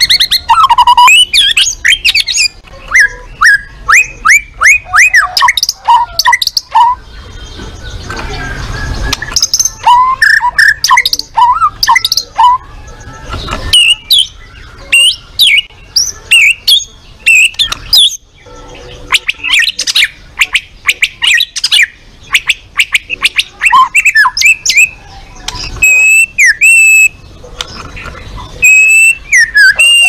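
White-rumped shama singing a loud, varied song of rapid whistles, trills and sharp clicks, with a short lull about eight seconds in and a few long level whistles near the end.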